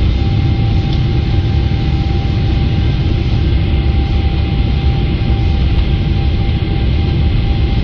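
Cabin noise inside a Boeing 777-300ER beside its GE90-115B engine as the airliner rolls along the runway: a steady low rumble with hiss and a faint steady whine.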